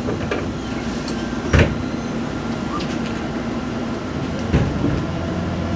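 Inside a MAZ 203.065 city bus: a steady engine hum and road noise, with three short knocks or rattles from the body, the loudest about a second and a half in.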